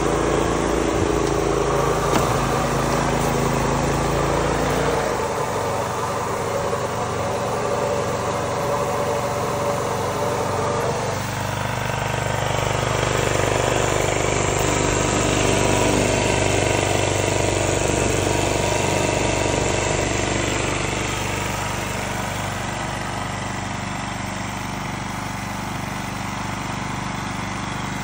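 Motor of a small tracked sprayer running steadily, its pitch shifting about five seconds in and again around eleven seconds.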